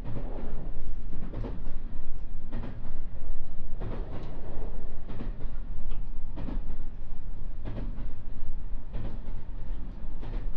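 JR West 221 series electric train running, heard from inside the car: a steady low rumble with the clack of wheels over rail joints about once a second.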